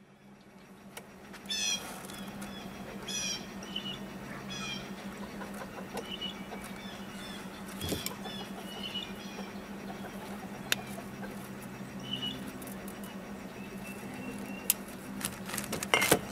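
Birds chirping in short repeated runs of high notes, over a steady low hum. Scattered light clicks from wires and crimp terminals being handled, with a louder cluster of clicks near the end.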